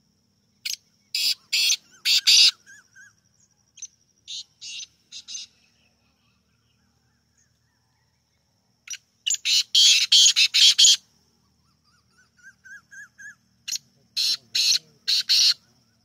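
Black francolin calling: three loud phrases of harsh, grating notes, a few seconds apart, with a shorter fainter phrase between the first two and faint chirps in the gaps.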